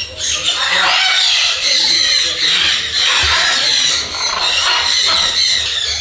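Many parrots in aviaries screeching and squawking at once, a continuous chorus of overlapping high-pitched calls.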